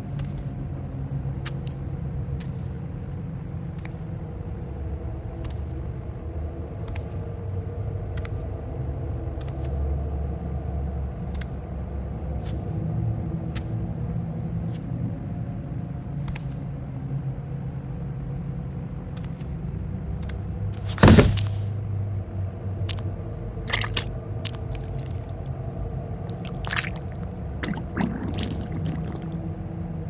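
A steady low rumble with faint ticks about once a second. About 21 seconds in there is one loud sharp thud, followed by a few smaller knocks.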